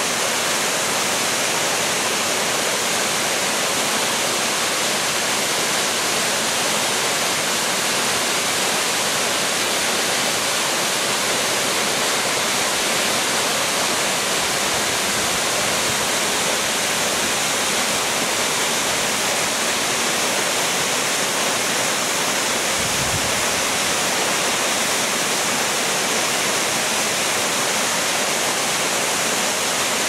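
Waterfall pouring steadily: a constant, unbroken rush of falling water.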